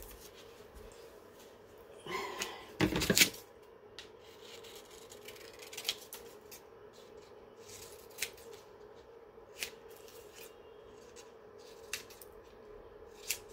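Quiet workroom sounds over a steady faint hum: a brief rustle about two to three seconds in, then a few scattered sharp clicks.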